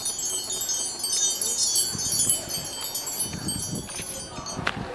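Wind chimes tinkling: many high, bell-like tones overlapping, dying away about four and a half seconds in.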